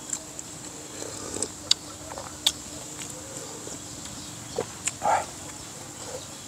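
Eating sounds: a metal spoon clinking sharply a few times against a ceramic soup bowl, with chewing and mouth noises and a short louder mouth sound about five seconds in.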